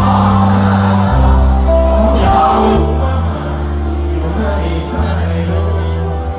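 Live rock band playing a song over a festival PA, with a male singer, keyboards, guitars and a sustained bass line; the crowd's voices blend in with the singing.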